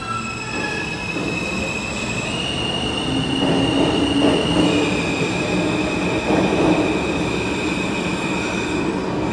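J subway train pulling out of the station and running past: rumble of wheels on rails over a high whine that shifts pitch in steps, loudest in the middle as the cars speed by.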